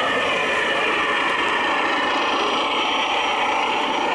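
Radio-controlled model fire trucks running, a steady mechanical whir.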